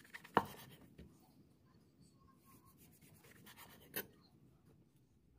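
Kitchen knife slicing through a lion's mane mushroom on a wooden cutting board: a faint scratchy rasp of the blade through the spines, with a sharp tap of the blade meeting the board about half a second in and another near four seconds.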